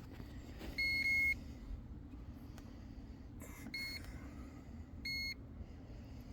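Digital fish scale beeping three times, high single-tone beeps a couple of seconds apart, the first the longest, as it takes and locks in the fish's weight.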